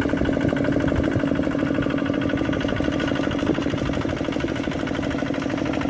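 Kubota RT140 single-cylinder diesel engine of a walking tractor running steadily under load as its cage wheels drag a leveling board through rice-field mud, with an even, rapid chugging.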